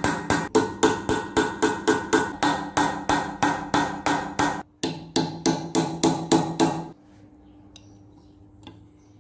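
Hammer striking a steel punch held on a rivet of a rusted cast-iron pipe wrench clamped in a bench vise: steady ringing metal-on-metal blows, about three a second. There is a short break a little over four seconds in, the blows stop about seven seconds in, and a few faint clicks follow.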